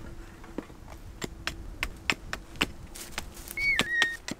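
Hatchet chopping a wooden branch: a string of sharp, irregular knocks, about a dozen.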